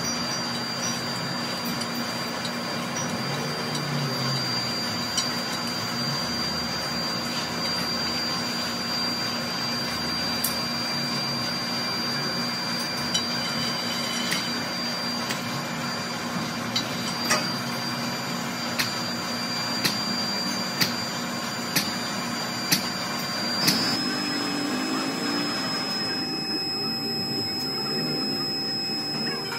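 Steady mechanical hum with a few constant tones, broken by sharp clicks roughly once a second in the second half; about three-quarters of the way through the sound changes abruptly.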